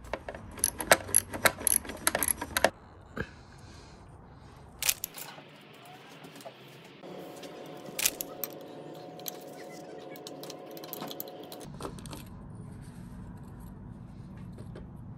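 Metal clinking and jingling for about the first three seconds, then a few scattered clicks and knocks over a faint steady hum.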